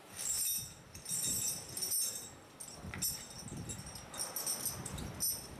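Heavy steel tire chains for a snow-removal grader clinking and jingling in several short bursts as the links are handled and shifted against the wheel.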